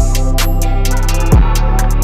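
Background music with a steady electronic beat: a deep sustained bass line, quick hi-hat ticks, and heavy kick-drum hits at the start and about a second and a half in.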